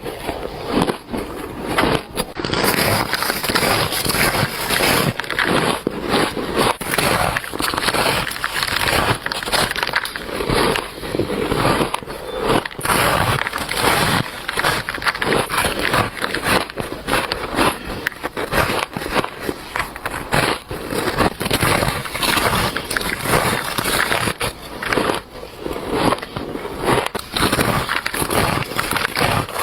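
Close-up bites and chewing of shaved ice, a squeaky, crunchy crackling that goes on steadily with many quick crunches.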